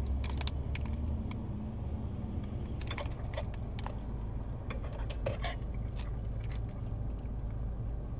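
Steady low rumble of a car heard from inside the cabin, with scattered light clicks and rattles of small objects being handled.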